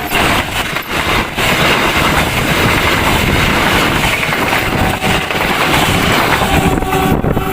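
A train passing close by at speed: the loud, steady rush and rumble of its wagons on the rails, with a few wheel clacks in the first second and a half.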